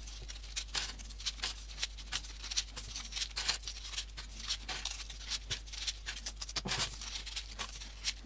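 Folded paper units of a modular origami model rustling and clicking as they are pushed onto a row, in quick irregular taps.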